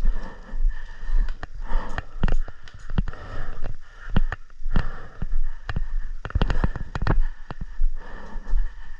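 Footsteps and the rustle and knocking of clothing and gear rubbing against a body-worn camera microphone, with irregular sharp clicks and a low rumble of handling noise.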